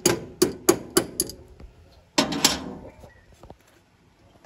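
Adjustable wrench clinking and knocking against the tractor's metal dash panel. There are about five sharp, ringing metallic knocks in the first second and a half, then two more close together a little after two seconds.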